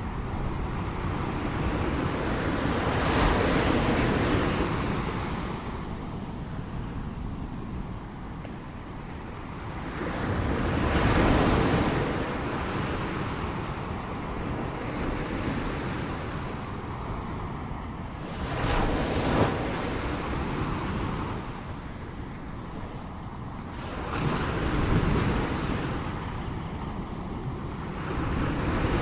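Ocean surf: waves breaking and washing in, each one swelling and fading about every seven seconds over a steady low rumble.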